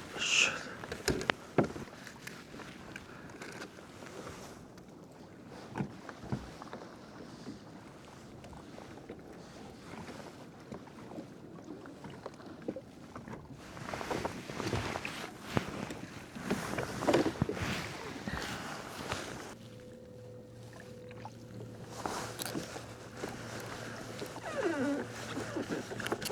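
Water sloshing and lapping against a fishing kayak's hull, with scattered knocks and clicks.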